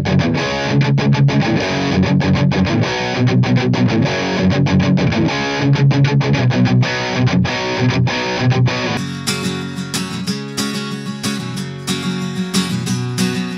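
Electric guitar played through an amp cabinet for about nine seconds, with a crunchy, slightly distorted tone. It then switches to strummed chords on an acoustic guitar. Both are picked up by a budget FiFine K8 dynamic microphone.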